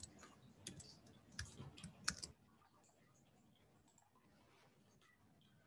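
A handful of faint computer keyboard keystrokes typing a short code, then the sound cuts out to dead silence a little over two seconds in.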